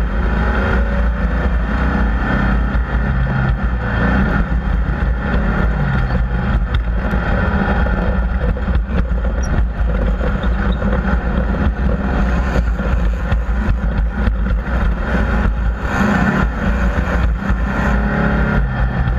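Off-road race vehicle engines running loud and continuous, their pitch rising and falling as they rev.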